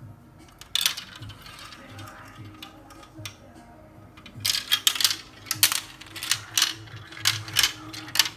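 Marbles clicking and clattering through the plastic pieces of a marble run: a sharp click about a second in, then a quick run of clicks and rattles through the second half.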